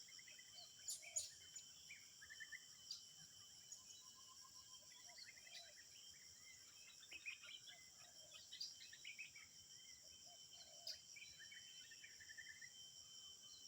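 Faint tropical outdoor ambience: a steady high insect drone with scattered short bird chirps and brief trills throughout.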